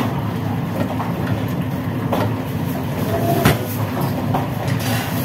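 Steady low rumble of kitchen machinery, with a few sharp knocks, the loudest about three and a half seconds in.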